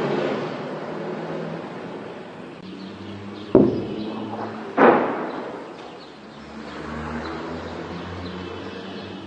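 Two loud bangs of shelling about a second apart, each trailing off in an echo, over a low rumble that fades in the first couple of seconds.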